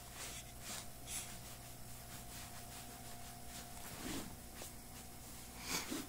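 Faint swishing strokes of a sponge scrubbing saddle soap over a leather riding boot, a few quick rubs in the first second and a couple of stronger ones later, over a steady low hum.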